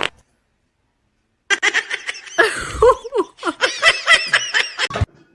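A person laughing in quick, repeated bursts that start about a second and a half in, after a gap of silence, and stop abruptly near the end.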